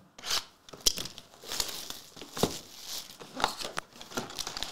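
Plastic shrink wrap crinkling and tearing as a sealed Panini Prizm trading-card box is opened by hand, with scattered light clicks of cardboard and packs being handled.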